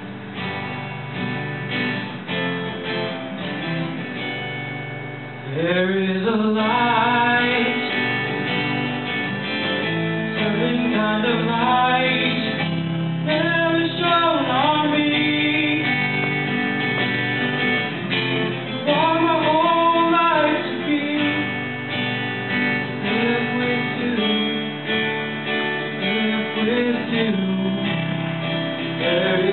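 Two acoustic guitars strummed together in a live duet; about five seconds in a man's voice begins singing over them and the sound grows louder, carrying on in sung phrases with short gaps.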